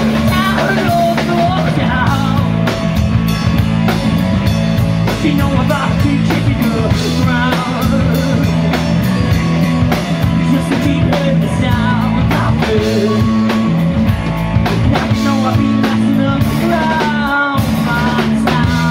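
A live rock band plays a song on drum kit, electric bass and electric guitar, with a male singer's vocals over the top.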